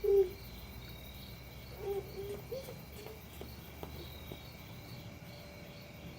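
Crickets chirping steadily, a high pulsing trill that repeats about twice a second over a continuous high tone. A few short, low, pitched sounds come at the very start, the loudest moment, and again about two seconds in.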